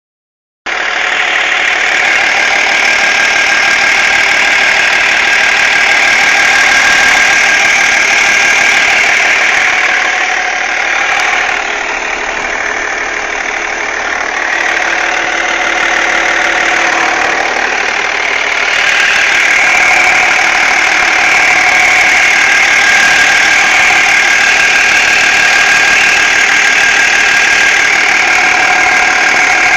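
BMW E46 330d's straight-six diesel engine running, with a steady high-pitched tone over the engine noise: a weird noise from behind the power steering pump. It starts about half a second in and goes quieter for several seconds midway.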